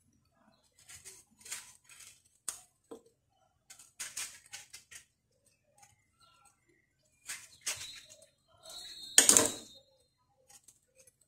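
A kitchen knife cutting through lemons: a string of small cuts, scrapes and squishes, with one louder knock about nine seconds in.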